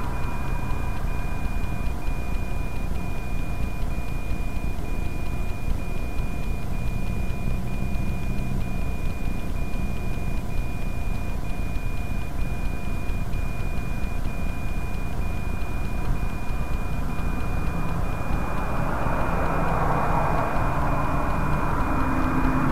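Steady low rumble of a stopped vehicle with highway traffic passing, swelling a couple of times as vehicles go by. Through it runs a high-pitched electronic tone that breaks briefly about once a second.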